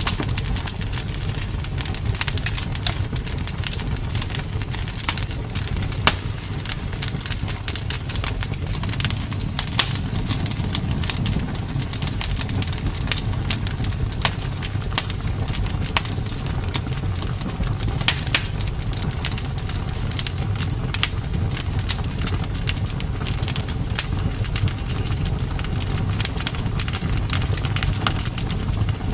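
Wood fire crackling in a fireplace: a steady low rumble of flames with frequent, irregular sharp pops and snaps.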